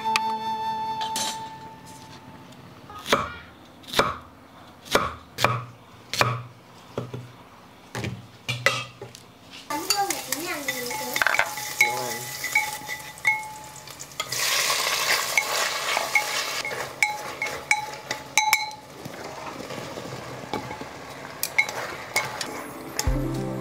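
Cooking sounds: a run of sharp clinks and knocks of a metal utensil, then about ten seconds of food frying in a pan as it is stirred, a spatula scraping and ticking against the pan.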